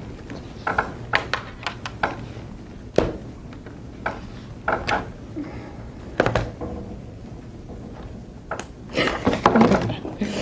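Scattered light knocks and thuds against a quiet room background, with a brief speech-like sound near the end.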